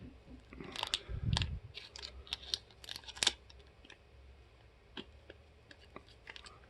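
Small plastic clicks and crackles as a toy slime container is handled and opened, busiest in the first three seconds, with a dull thump a little over a second in, then a few scattered clicks.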